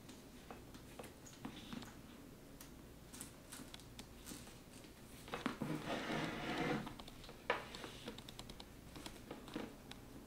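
Hands handling a canvas-and-leather handbag and its leather strap with metal hardware: scattered light clicks and taps, a rustling scrape lasting about a second and a half near the middle, then one sharp click.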